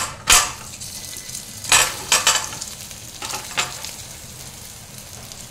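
Steamed fenugreek-and-pea muthiya pieces tipped into hot oil in a steel kadhai with tempered seeds, frying with a steady sizzle. Several sharp clatters against the steel pan come in the first four seconds.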